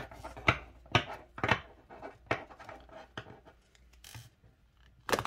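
A deck of round oracle cards being shuffled by hand: card edges snap and slide against each other in sharp taps about twice a second, thinning to soft rustling near the end.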